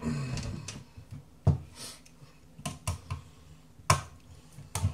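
Handling noise, then several sharp metallic clicks and knocks as a tin can of pasta sauce and a hand-held can opener are set down and the opener is clamped onto the rim.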